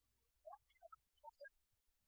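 Near silence, with a handful of faint, brief, scattered tonal blips between about half a second and a second and a half in.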